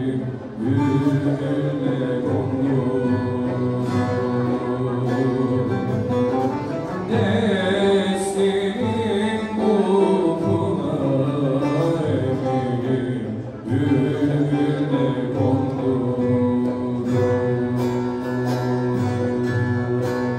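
Turkish Aegean folk music playing for a zeybek dance: plucked string instruments with a singing voice.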